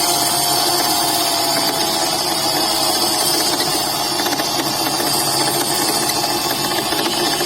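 A power tool motor running steadily at full speed. It cuts in abruptly, and its whine sinks slightly in pitch over the first few seconds, as if under load.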